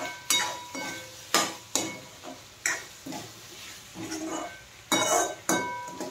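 Steel spoon stirring cubed pumpkin in a steel kadhai, clinking and scraping against the pan. The clinks come irregularly, roughly one or two a second, each ringing briefly.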